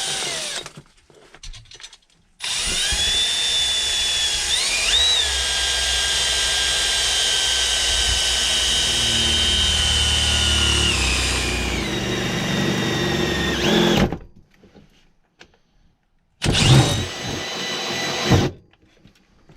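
Power drill boring a static-pressure test port hole in HVAC ductwork. It starts with a short burst, then comes a long run of about twelve seconds whose whine climbs early on, holds steady and sags as it finishes, and then a final brief burst.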